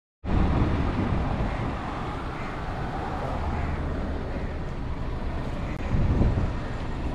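Mercedes-Benz C-Class 2.0-litre four-cylinder petrol engine idling steadily, a low hum, with a brief low swell about six seconds in.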